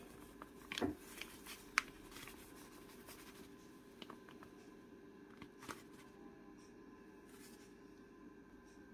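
Tapioca starch being spooned into a glass bowl on a kitchen scale: a few faint, scattered clicks and light scraping, the sharpest click about two seconds in, over a faint steady hum.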